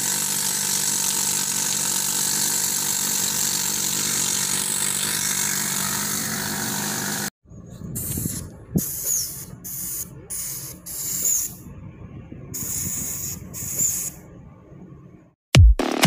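Steady, loud hissing for about seven seconds that cuts off abruptly, then a string of short hissing bursts, each about a second long, with a few faint knocks between them. Music with a heavy beat starts just before the end.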